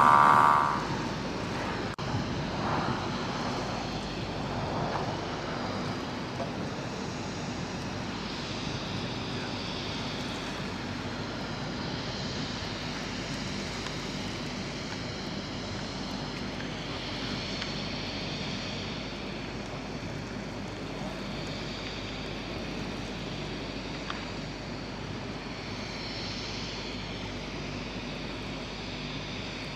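Steady outdoor background noise with a distant engine hum. A loud tone about a second long sounds right at the start.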